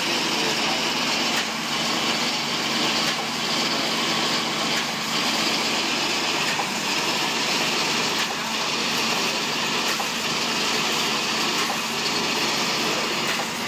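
A 3-6mm high-speed wire straightening and cutting machine running: a loud, steady mechanical whirr and hiss, with a brief louder pulse about every one and a half to two seconds.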